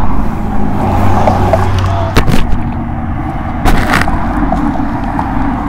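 A vehicle engine running steadily, with sharp knocks about two seconds in and again near four seconds.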